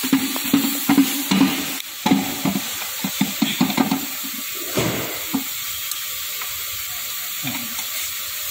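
Casing bolts of a Maruti WagonR gearbox being unscrewed with a T-handle socket wrench: a quick run of metal clicks and rattles for about the first four seconds, then only a few scattered knocks.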